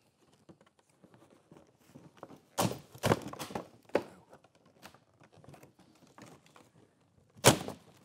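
A few dull thunks from objects being handled and set down on a surface, about two to four seconds in, then a sharper knock near the end, with light clicks of handling between them.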